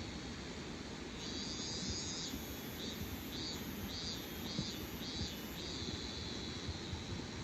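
Insects singing: a steady high-pitched chorus, with one insect breaking in about a second in with a longer call and then a run of six evenly spaced pulsed calls, about one and a half a second, before the steady chorus carries on alone.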